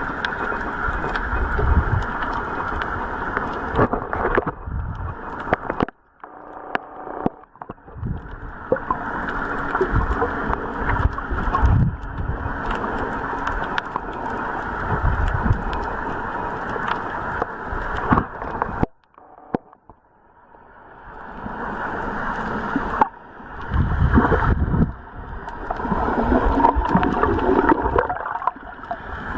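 Muffled water sloshing and gurgling, uneven throughout, with brief drop-outs about six seconds in and again around twenty seconds.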